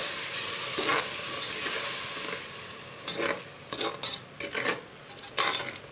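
Onion-tomato masala with freshly added ground mint paste sizzling in a pressure cooker as a metal spoon stirs it, scraping against the pot several times. The sizzle grows quieter toward the end.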